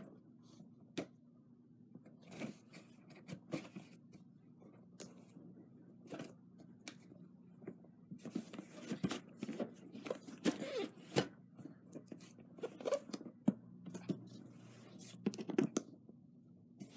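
A knife cutting open a package: irregular scraping, tearing and sharp clicks, sparse at first and busier from about eight seconds in.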